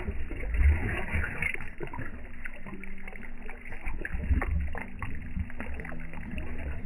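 Water splashing and slurping as a crowd of large fish, which the feeders take for carp, mouth floating food pellets at the surface: a jumble of irregular wet splashes and sucks. A low, uneven rumble runs underneath on the microphone.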